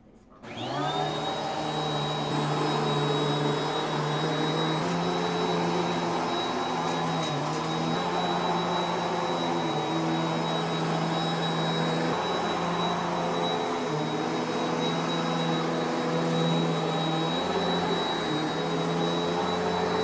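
Bissell PowerForce Helix Turbo 1701 bagless upright vacuum cleaner switched on about half a second in, its motor spinning up quickly to a steady drone with a high whine as it is pushed over carpet. Occasional faint ticks of dust and grit being sucked up into the bin.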